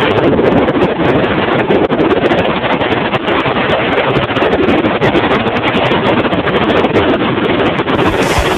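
Strong wind buffeting the microphone: a loud, steady rushing noise with frequent crackles.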